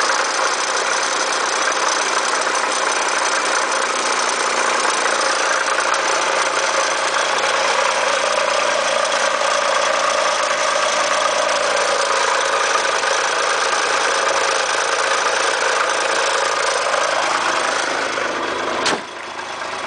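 1990 Acura Legend's V6 engine running, with a steady mid-pitched tone over the engine sound: the irritating noise whose cause the owner cannot identify. The tone rises slightly near the end, then a sharp click comes about a second before the end and the sound drops in level.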